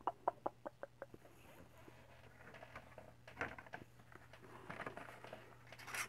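A quick run of about seven light clicks, fading over the first second, then faint rustling and handling of objects as someone rummages for items, with a louder knock midway and another near the end.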